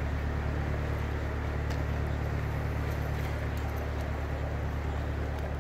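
Small canal boat's motor running steadily at cruising speed, a low even drone with the hiss of water and wind over it.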